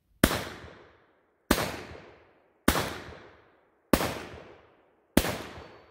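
Five shots from a .44 British Bull Dog revolver firing black-powder .44 Bull Dog cartridges, evenly spaced about a second and a quarter apart. Each shot is followed by an echo that fades away over about a second.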